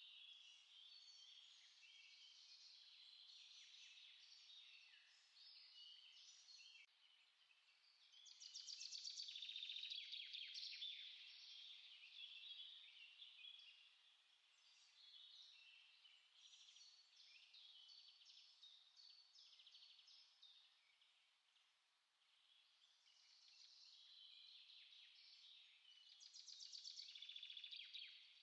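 Small songbirds singing and chirping continuously, several calls overlapping. A louder, fast-pulsing song comes in about eight seconds in and again near the end.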